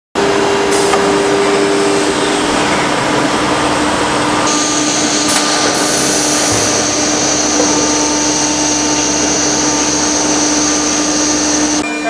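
TRA-1325 ATC CNC wood router running, a steady machine noise with a high whine that enters about four seconds in.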